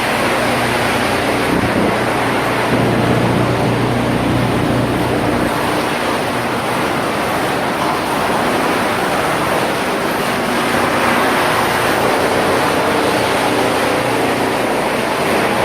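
Drum wood chipper production line running: loud, steady machinery noise with a motor hum underneath.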